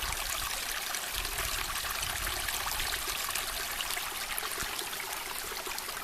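Mountain spring water running and splashing steadily, flowing strongly.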